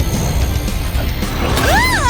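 Cartoon soundtrack: background music with a clattering, mechanical-sounding sound effect, and a short pitched sound that rises and falls near the end.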